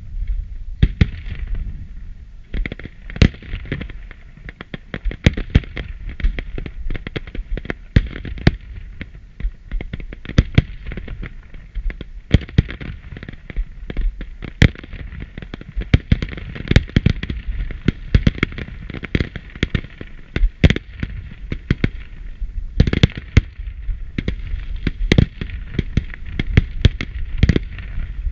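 Aerial fireworks display: a dense, irregular string of bangs and crackles from bursting shells, several reports a second without a break.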